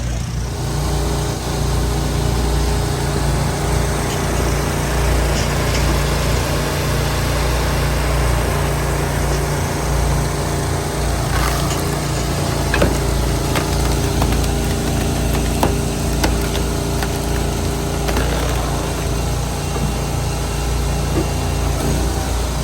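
An engine running steadily at a constant speed, with a few sharp knocks and cracks over it.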